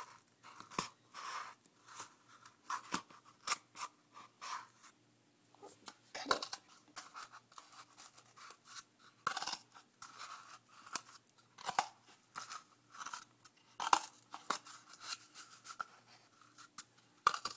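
Scissors cutting through a cardboard toilet paper roll: a string of crunchy snips, about two a second, with a short pause about five seconds in.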